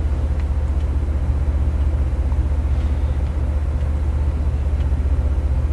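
Steady low mechanical hum with a fast flutter, holding at an even level throughout.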